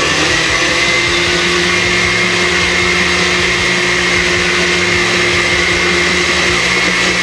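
Countertop blender running steadily at full speed with a constant motor whine, blending milk and whipped-cream (chantilly) powder into frosting.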